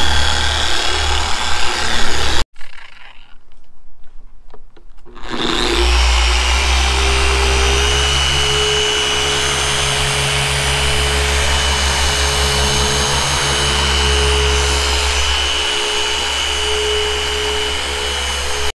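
Electric car polisher buffing compound into the clear coat of a carbon fiber hood, running with a steady whine and low hum. The sound drops away suddenly about two and a half seconds in, and after a few quieter seconds the polisher runs steadily again.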